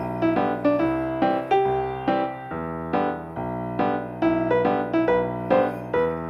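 Background music: a piano playing a melody of short, evenly spaced notes, about three a second.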